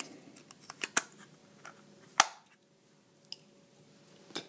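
Scattered clicks and knocks of a Walther CP88 air pistol being handled as its grip panel is fitted back on the frame. The loudest is one sharp click about two seconds in.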